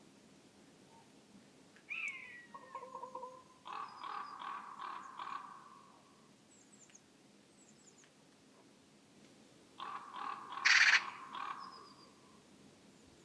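Wild bird calls: a single falling call about two seconds in, then two runs of about five quick repeated calls, the second run with one loud harsh note in the middle.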